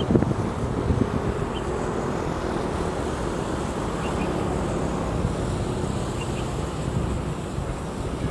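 Wind buffeting the microphone as a steady low rumble, with a few faint short high chirps now and then.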